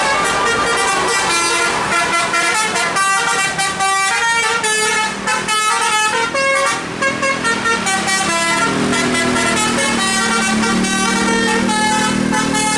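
A bus's musical 'telolet' air horn playing a fast melody of short, changing notes, with lower held notes joining about two-thirds of the way through.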